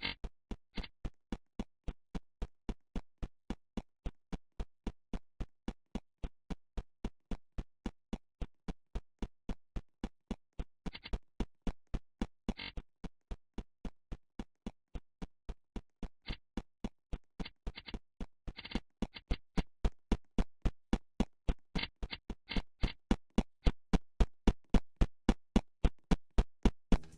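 Electronic music: a steady kick-drum beat at about three beats a second, with occasional sharper, brighter hits.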